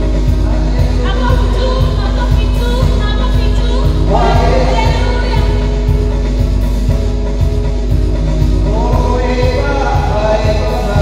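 Worship song: voices singing over a band accompaniment with a steady low beat.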